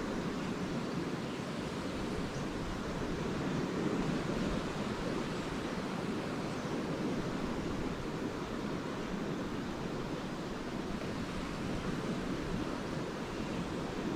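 Lake waves washing onto a beach, a steady even wash of noise that swells slightly about four seconds in.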